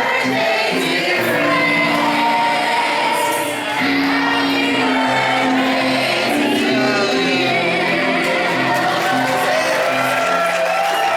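Live stage show music: voices singing over an instrumental accompaniment with a bass line that moves note by note.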